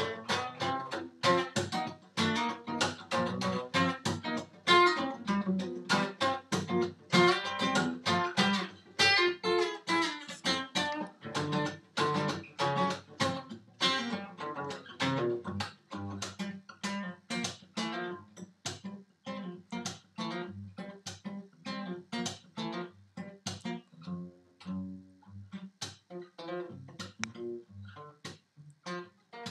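Acoustic guitar strummed in chords, a steady run of strokes. The playing is fuller and louder in the first half, then turns lighter and sparser from about halfway through.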